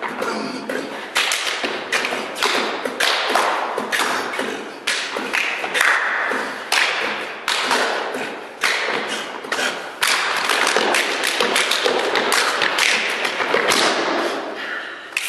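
Stepping body percussion by three men: stomps and hand slaps on the chest and body building a funky beat, with a quick run of sharp strikes several a second.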